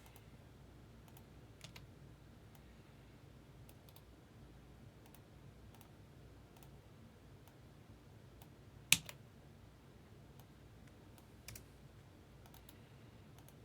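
Sparse, faint computer keyboard and mouse clicks, with one sharp louder click about nine seconds in.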